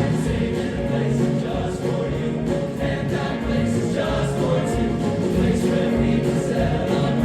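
A choir singing in sustained, held notes.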